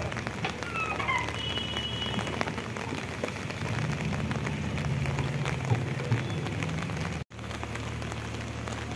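Steady patter of rain, with the diesel engine of a JCB 3DX backhoe loader running underneath; the engine's low hum grows louder in the middle as the machine works the mud. Near the end the sound cuts out for an instant.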